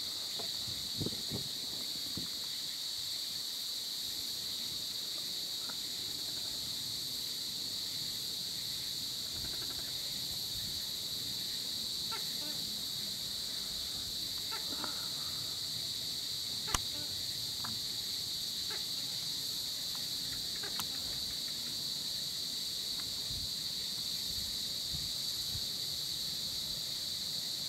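Evening insect chorus, a steady high-pitched drone of crickets or cicadas, with a single sharp click about seventeen seconds in.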